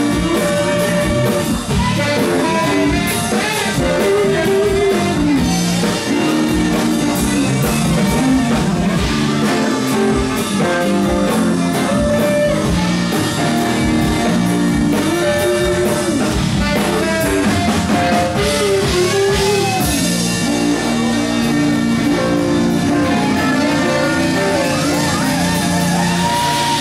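Live funk band playing, with electric guitar, saxophones, keyboards, bass and drums, and singing over them. The drumming thins out about twenty seconds in, leaving held notes from the band.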